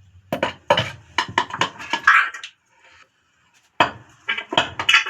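Metal clinks and knocks as a fork cartridge is handled and fitted into a motorcycle fork tube. A run of sharp taps comes first, then a pause of about a second, then more taps near the end.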